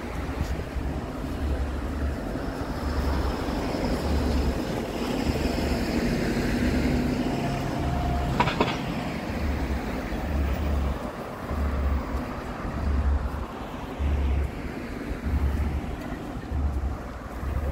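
Outdoor street ambience of passing traffic, with wind gusting on the microphone as a low rumble. There is a single sharp click about halfway through.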